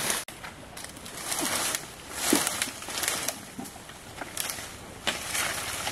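Leaves, stems and twigs rustling and crackling in irregular spells as someone pushes through dense undergrowth on foot.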